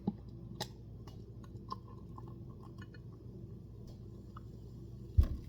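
Light handling clicks from a beer bottle and glass, then one loud, dull thump near the end as something is set down on a table.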